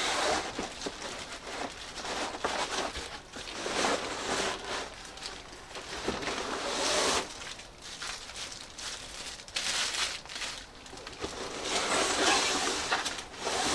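Cardboard and paper packaging rustling and scraping in uneven surges as a parcel is unpacked by hand.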